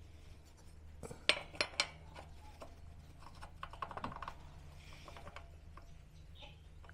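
Small metal parts clinking and tapping as they are slid onto a lawnmower engine's drive shaft: three sharp clinks about a second in, then a quick run of lighter taps around four seconds.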